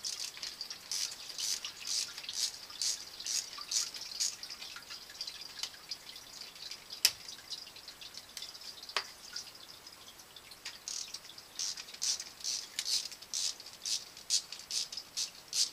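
Ratcheting socket wrench clicking in short runs, about two or three clicks a second, as the band clamps on a rubber no-hub coupling of a PVC sump pump discharge pipe are loosened. The clicking pauses in the middle, with one sharp click, then picks up again.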